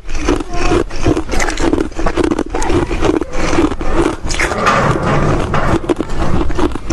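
Close-up crunching and chewing of hard chunks of freezer frost: a dense, irregular run of crisp crunches.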